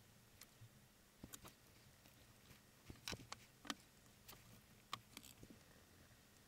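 Near silence broken by a few faint, short clicks and taps from handling things on a workbench, clustered around the middle.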